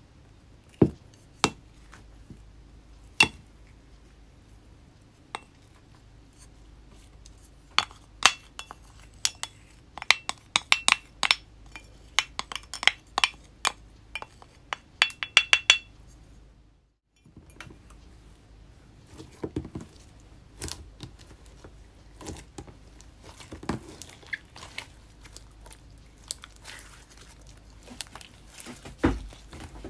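A wooden spoon clicking and knocking against a clear container while stirring makeup powder into pink slime, in an irregular run of sharp taps with a ringing edge, thickest in the middle. After a short break, hands kneading the slime make softer, lower squishing clicks.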